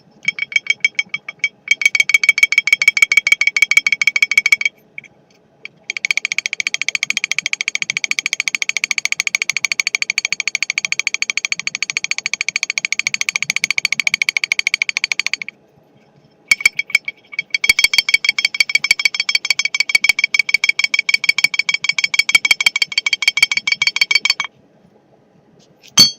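80cc big-bore GY6 moped engine running with a rapid, loud metallic clatter that stops and starts several times, with one sharp click near the end. The slapping knock sounds like piston slap but comes from a rocker arm randomly sticking, which the owner traced it to.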